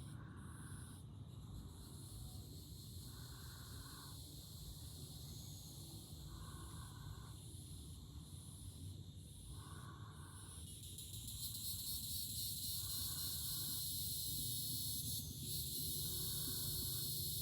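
Outdoor evening ambience of insects trilling high and steadily, swelling louder about two-thirds of the way through. A short call repeats about every three seconds, over a steady low rumble.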